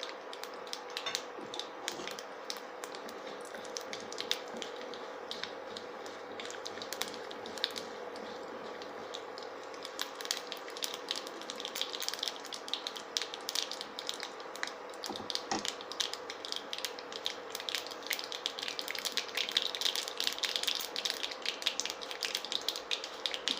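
Mustard seeds spluttering and popping in hot oil in a kadai during tempering: irregular sharp crackles that grow denser from about ten seconds in.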